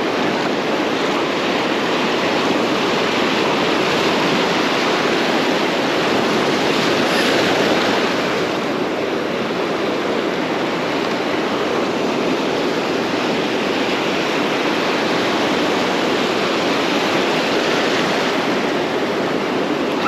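Ocean surf washing in around the feet, a steady rushing hiss of breaking waves and foam that swells a little about seven seconds in and then eases slightly.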